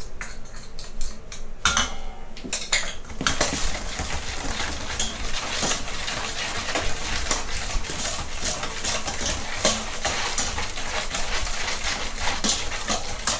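A metal ladle stirring a liquid marinade in a stainless-steel mixing bowl, a continuous clatter and scrape of metal on metal, stirring to dissolve the sugar. In the first couple of seconds there are a few separate clinks as a knife scrapes seasoning off a small dish into the bowl.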